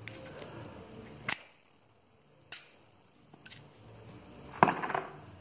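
Handling noises: a sharp click, two more single clicks, then a short clatter of knocks near the end.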